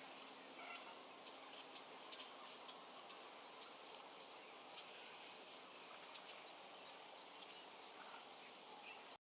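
Common kingfisher giving short, high-pitched whistled calls, about seven in all at uneven intervals, each note dropping slightly in pitch.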